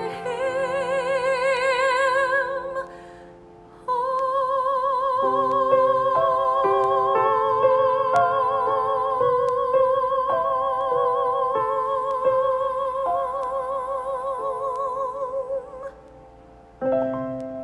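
A woman singing solo with wide vibrato over an instrumental accompaniment of sustained chords. A phrase ends about 3 s in; from about 4 s she holds one long high note for some twelve seconds while the chords shift beneath it, and a last chord sounds near the end.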